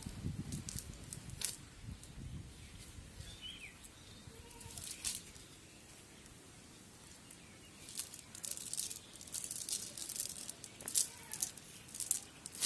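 A cast net being handled by hand: the mesh rustling with light clicks as it is gathered and lifted, coming in clusters with a quieter spell midway and growing busier near the end.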